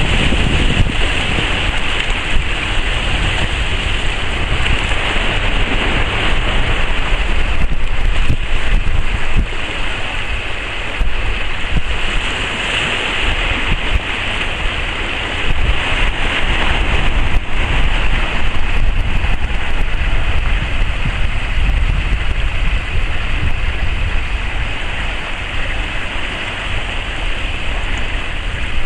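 Steady wind buffeting the microphone, with sea water washing and slapping against rocks underneath.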